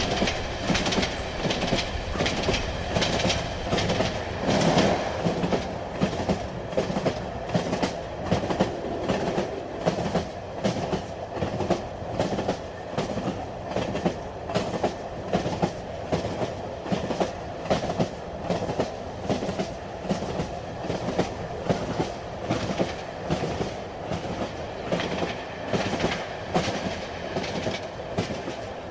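Train rolling along the track: a steady rumble with a regular clickety-clack of the wheels passing over rail joints.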